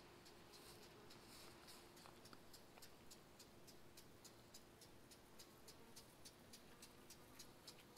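Near silence, with a faint, fast, high-pitched ticking of about four ticks a second and a faint steady hum beneath it.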